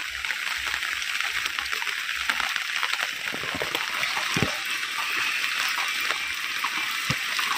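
Heavy rain falling steadily, a dense patter of many small splashes, with a few single louder drips standing out around the middle.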